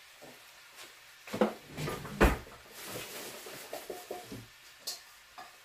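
Kitchen clatter: a bowl and utensils being handled and set down, three knocks about a second and a half in, the loudest a heavy thud just after two seconds, then a scatter of lighter clicks.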